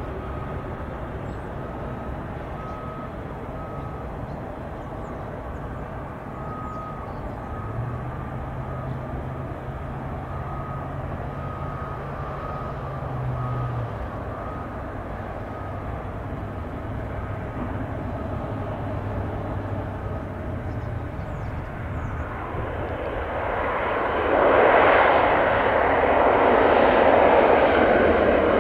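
Bombardier Dash 8-400's twin Pratt & Whitney PW150A turboprops on landing approach: a steady distant drone that swells about 24 seconds in into a much louder rush of engines and propellers as the aircraft comes close.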